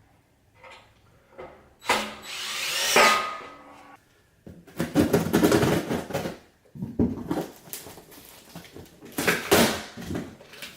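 Steel rack shelf being handled and fitted to the rack: loud spells of scraping and rattling metal about two seconds in, again around five seconds and near the end, with a brief squeal of metal rubbing near the start of the first spell.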